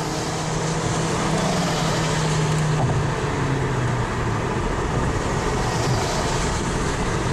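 Steady road and wind noise inside a moving vehicle, with a low hum that drops slightly in pitch about three seconds in.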